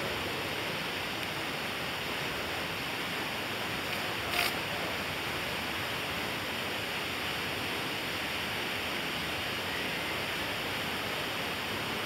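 Steady rush of water flowing through a slot canyon's pools and small cascades. A brief sharp click about four and a half seconds in.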